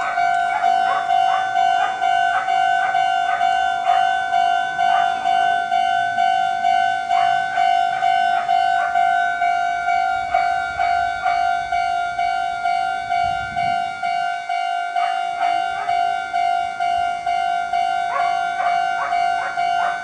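Japanese railway level-crossing warning bell ringing steadily at about two strikes a second, signalling that the crossing is closed for an approaching train.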